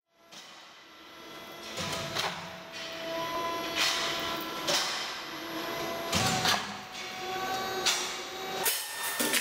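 Steel roll forming line for C-profiles running, fading in over the first second: a steady machine hum with several steady tones and irregular metallic clanks and knocks every second or so.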